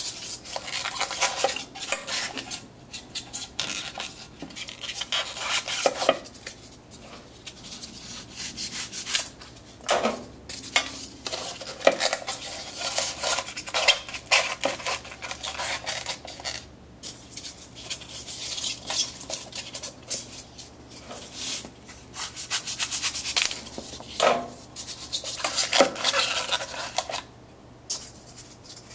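Hands handling hard parts and packing material at a workbench: irregular bursts of clattering, rubbing and scraping with many small clicks.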